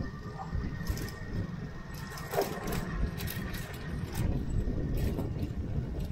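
Motorbike running as it rides slowly along: a low, steady rumble with scattered rattles and clicks.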